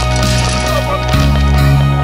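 Background instrumental music with sustained chords; the low notes change about a second in.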